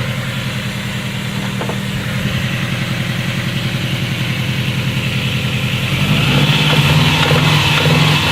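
Subaru EJ20K flat-four engine running, with a steady pulsing hum that gets louder about six seconds in; the engine has a knock.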